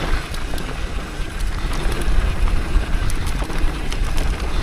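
Mountain bike rolling down a dirt trail on a flat rear tyre: a continuous low tyre-and-trail rumble with scattered rattles and knocks from the bike, and wind on the microphone.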